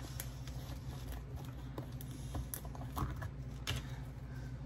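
Scattered light clicks and taps of small plastic figures and paint jars being handled on a workbench, over a steady low hum.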